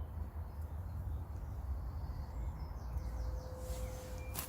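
Woodland ambience: a steady low outdoor rumble, with faint bird chirps and a short run of quick bird notes about three seconds in.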